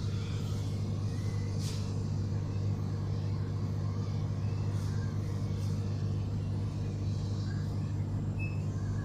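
Steady low machine hum of supermarket cooling equipment, with a few faint clicks.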